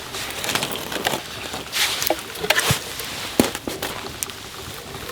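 Firewood being handled and laid on a campfire: rustling and scraping, with several sharp wooden knocks, the loudest about three and a half seconds in.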